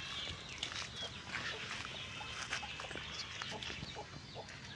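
Faint, scattered short animal sounds over a quiet outdoor background.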